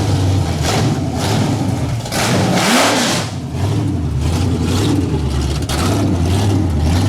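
Car engine running and revving, its pitch rising and falling briefly about three seconds in.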